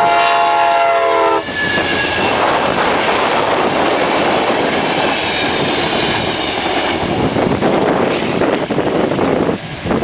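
Amtrak P42DC diesel locomotive's horn sounding a chord of several notes, cutting off about a second and a half in. Then the passenger cars rush past over the crossing with steady wheel clatter, under heavy wind noise on the microphone.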